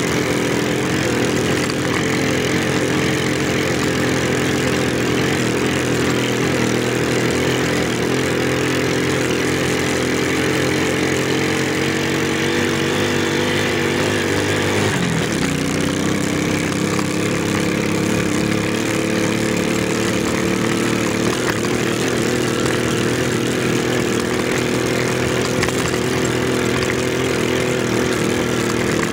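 Motorcycle engine running steadily under way on a rough dirt road, its pitch creeping up, then dipping sharply about halfway through before holding steady again.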